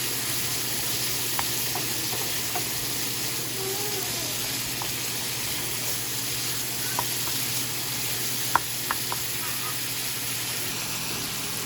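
Chicken frying, with a steady sizzle and a few sharp clicks of a utensil against the pan; the loudest click comes a little past halfway, followed quickly by two more.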